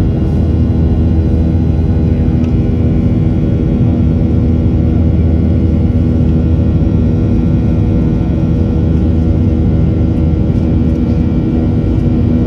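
A passenger airplane's engines heard from inside the cabin: a loud, steady low rumble with several steady humming tones over it.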